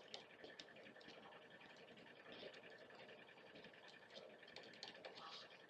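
Faint, irregular pencil ticks and scratches as a pencil tip dots hole positions through a plastic template onto cardboard.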